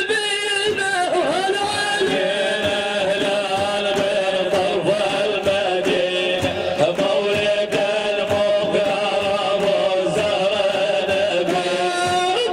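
Arabic religious praise singing (madih): a long, ornamented melismatic vocal line with a wavering held pitch, over a steady pattern of percussion strikes.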